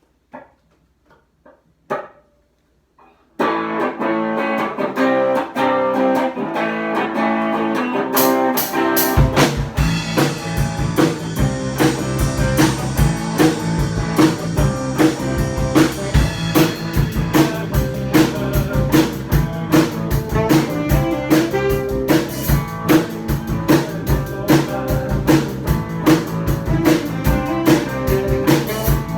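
A band playing a song, guitar first: after a few faint sounds, electric or acoustic guitar starts playing about three seconds in. Drums and a low bass part join at about eight to nine seconds, and the full band plays on with a steady beat.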